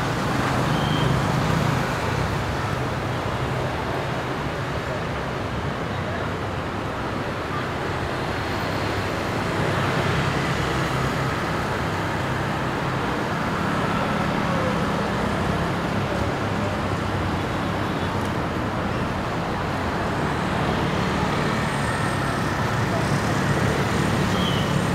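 Steady city street traffic: vehicle engines running past in a continuous, even wash of noise, with some voices mixed in.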